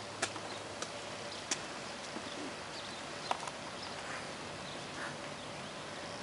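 Steady outdoor hiss on a railway platform with irregular sharp ticks and taps, roughly one every second or so.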